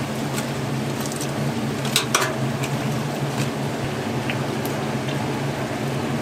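Battered twigim deep-frying in a large pan of hot oil: a steady sizzle over a low hum, with a couple of sharp clicks about two seconds in.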